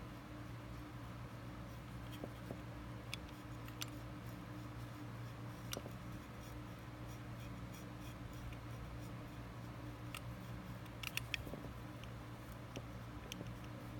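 Snap-off utility knife blade trimming nylon paracord fibres: faint, scattered snips and scratches, with a short cluster of small clicks around eleven seconds in, over a steady low hum.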